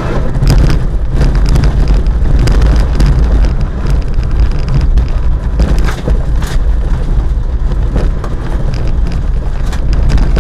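BMW 323i straight-six engine running hard on a dirt rallycross course, heard from inside the cabin as a loud, steady low drone. Gravel and dirt tick and clatter against the car's underside throughout.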